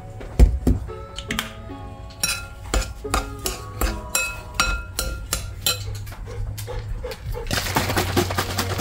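Metal teaspoon clinking and tapping against a glass mixing bowl, a run of light, sharp clinks, the loudest about half a second in, over soft background music.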